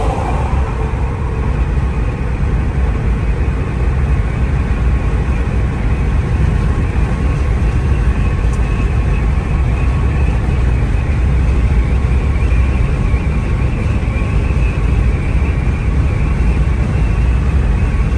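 Car driving on a highway, heard from inside the cabin: a steady low rumble of tyre and engine noise.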